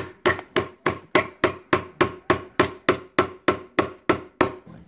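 Small hammer lightly tapping a finishing nail into a thin wooden side panel of a miniature staircase, a steady run of even taps about three a second that stops near the end.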